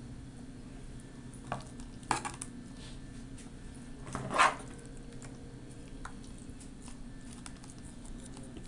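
A few short knocks and clatters of a kitchen utensil and dish against a plastic food container as cubes of set gelatin are added, the loudest about four seconds in, over a steady low hum.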